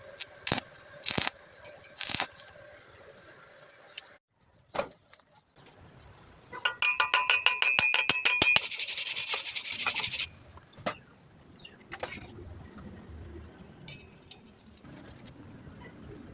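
Metal pieces clinking and tapping against each other. About six and a half seconds in there is a rapid run of clicks, then about two seconds of harsh hiss, the loudest sound here, and a few scattered clicks follow.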